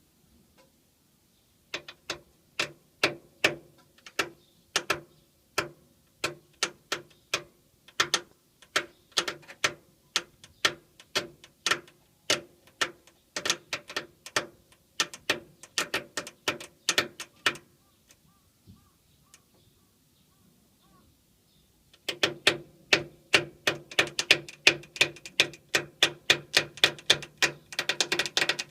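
Steering idler arm of a V130 Nissan Cedric Van creaking in sharp repeated clicks, about two a second, as the steering linkage is worked back and forth. This is the abnormal noise of a faulty idler arm. The creaking stops for a few seconds, then comes back faster and denser.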